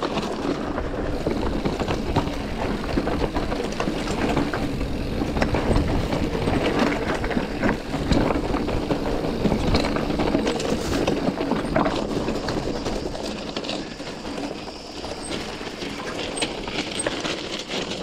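Mountain bike being ridden down a rough rocky trail: a continuous clatter of tyres over stones and the bike rattling, dense with short knocks.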